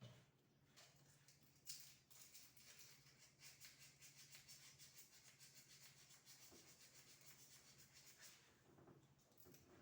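Faint, rapid scratching or rubbing strokes of hand work on a small part, running for about six seconds. A low steady hum sits underneath.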